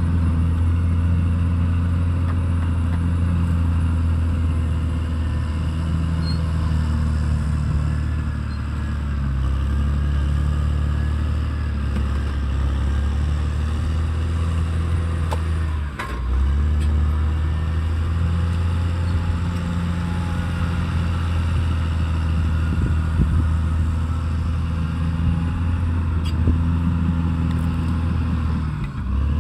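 Caterpillar D6R XL bulldozer's diesel engine running steadily under load, its pitch rising and falling a little as it works. The sound briefly drops out about halfway through.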